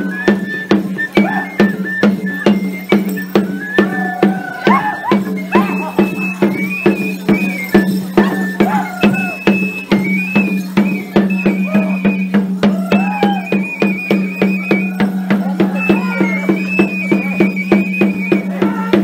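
Traditional folk dance music: a high, stepping melody on a whistle-like wind instrument over a steady low drone, driven by an even percussion beat of about two to three strokes a second.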